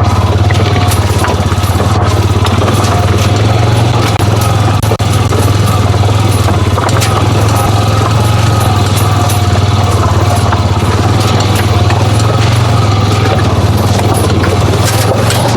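Engine of a Honda 500 side-by-side utility vehicle running steadily while it is driven, with a low, even pulse and rattle from the ride.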